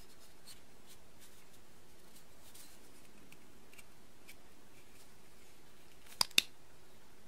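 Faint handling sounds of a Boker Pipsqueak folding pocket knife turned over in the hands, then two sharp metallic clicks about a fifth of a second apart near the end as its mechanism is worked.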